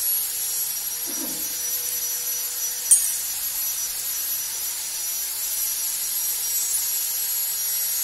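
A steady high-pitched hiss with a thin constant whine, like a running machine or rushing air, with a single sharp click about three seconds in; it cuts off abruptly at the very end.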